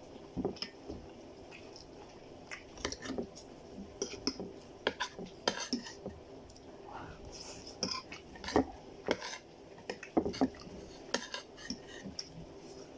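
Eating utensil clinking and scraping against a plate at irregular intervals while chow mein noodles are eaten.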